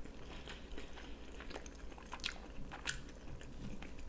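People chewing and biting food close to the microphone: sausage and fried toast that has gone soft under a lid and lost its crunch. A couple of sharp mouth clicks stand out about two and three seconds in.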